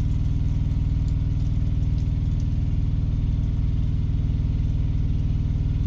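Peterbilt 389 semi truck's diesel engine idling steadily, heard from inside the cab.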